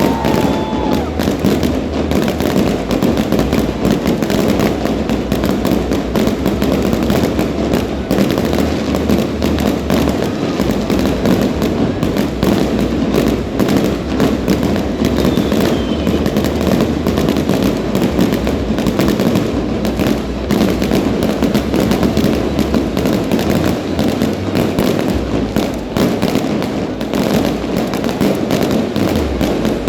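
Fireworks going off in a dense, unbroken barrage: rapid bangs and crackles overlapping with no pause. A faint falling whistle is heard about halfway through.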